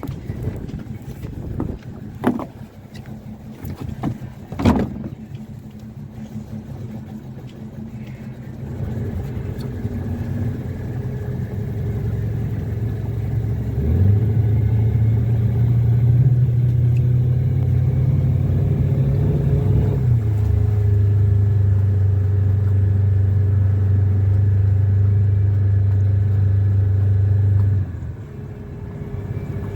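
Small boat motor running with a steady low drone that gets louder about halfway through, steps slightly lower in pitch a little later, and drops away suddenly near the end. Two sharp knocks come before it in the first few seconds.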